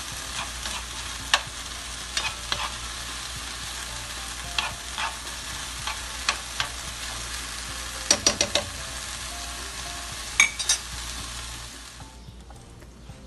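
Meat filling with onion and peppers frying and sizzling in a nonstick pan, stirred with a spoon that clicks and scrapes against the pan now and then. Near the end the sizzling drops away.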